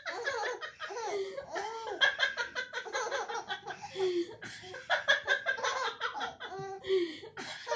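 A woman and a baby laughing together in repeated bursts.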